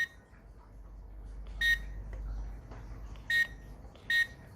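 Key-press beeps from a GSM SIM-card alarm control panel's keypad: three short, high beeps, unevenly spaced, each key registering at once now that the button contacts have been cleaned. A faint low rumble runs under the middle of it.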